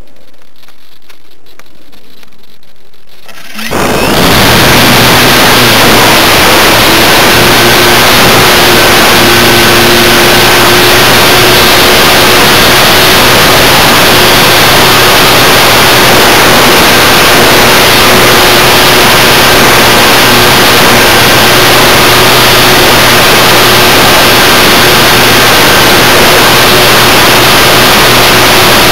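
Electric motor and propeller of an Art-Tech Cessna 182 foam RC plane, heard through the onboard FlyCamOne2 camera's microphone. After a quieter start, it suddenly goes loud about four seconds in: a steady, very loud hiss of propeller wash and wind with a steady motor whine.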